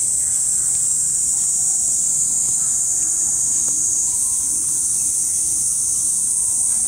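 Steady, high-pitched chorus of insects, with a slight shift in pitch about four seconds in.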